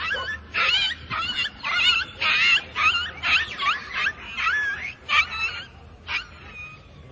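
Feral puppy whimpering and yelping: a quick series of high, wavering whines, about two a second, that thin out after about five seconds.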